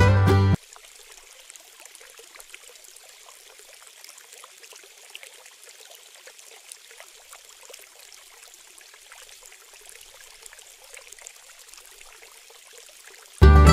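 A thin stream of water trickling along a sand channel into a small flooded plot, faint and steady with tiny splashing ticks. Background music cuts off about half a second in and comes back just before the end.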